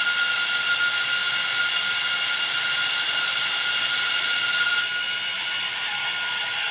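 Sound decoder of an HO scale Rapido EP5 electric locomotive playing the prototype's signature jet-like scream through the model's small onboard speaker as the engine travels down the track: a steady high-pitched whine with several held tones, easing slightly about five seconds in.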